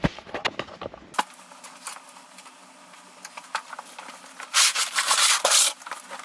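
Handling noise and a thump as the camera is moved and set down, then scattered small clicks. Near the end comes a loud rustle of fabric lasting about a second as a blanket is shaken and handled.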